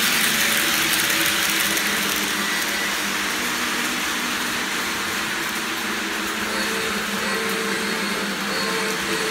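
Model electric train running on its track: the steady whirr of the motor with the rolling clatter of wheels on the rails. It eases a little midway and builds again near the end as the train comes back around.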